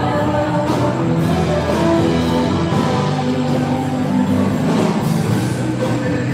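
Music with several held, pitched notes over a steady level.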